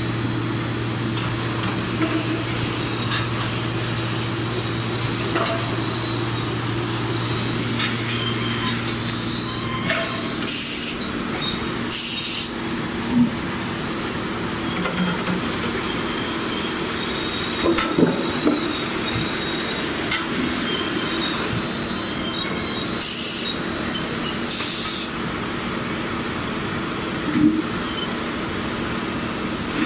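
5 ft rotary veneer peeling machine running: a steady mechanical din of motors and gearboxes, with a low hum that stops about a third of the way in. Knocks come now and then as logs are worked, and four short hissing bursts come in two pairs.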